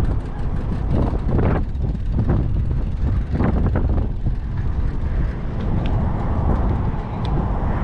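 Strong sandstorm wind buffeting a handlebar-mounted action camera's microphone: a loud, steady low rumble with a few stronger swells in the first half.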